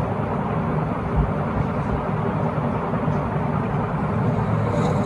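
Steady background noise: a low rumble and hiss with a faint steady hum, with no distinct events.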